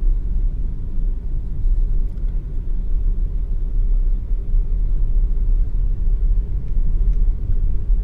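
Steady low rumble of a car being driven along a city avenue: road and engine noise, with no distinct events.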